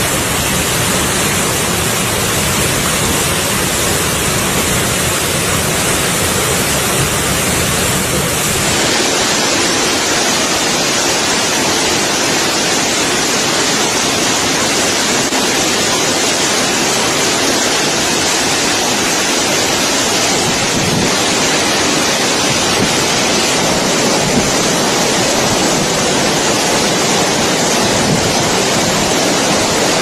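Waterfall: steady rushing of falling water. About nine seconds in the sound changes abruptly and loses much of its low rumble.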